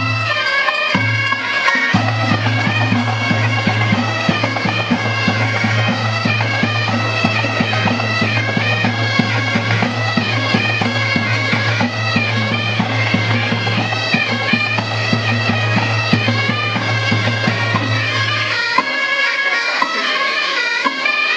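Bagpipes playing a melody over a steady low drone. The drone cuts in and out briefly at the start, then holds steady, and drops out near the end while the melody carries on.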